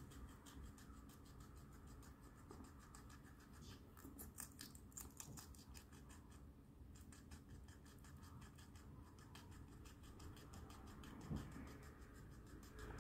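Faint, rapid crunching clicks of a guinea pig chewing, thickest about four to six seconds in, with a soft low thump about eleven seconds in.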